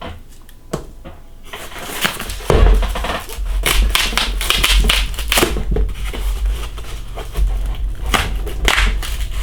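Cardboard record mailer being pulled open by its tear strip and handled: repeated ripping and crackling of cardboard, with low bumps from handling from about two and a half seconds in.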